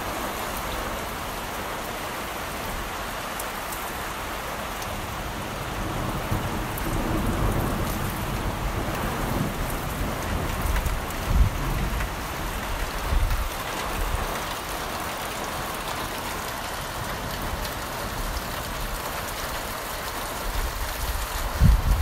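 Heavy rain falling steadily, an even hiss of drops on surfaces, with irregular low rumbles coming and going.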